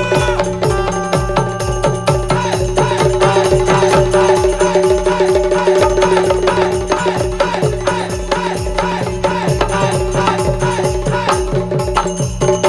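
Instrumental break in Bundeli Rai folk music: dholak and tabla drumming a fast, even beat under a held harmonium or keyboard chord, with a wavering melody line joining about two seconds in.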